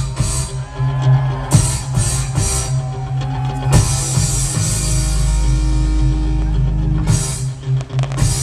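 Loud rock-style music with a drum kit and heavy sustained bass. Sharp hits cut through about one and a half seconds in and again just before four seconds in, and a dense wash of noise runs from about four to seven seconds in.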